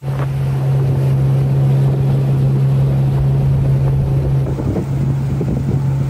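Outboard motor of a small aluminium fishing boat running steadily at cruising speed, a constant low hum, with wind on the microphone and water rushing past the hull.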